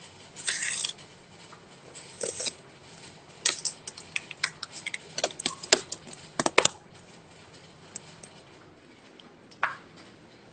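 Irregular clicks, scratches and rustles from objects being handled close by. They are busiest in the first seven seconds, with one more click near the end.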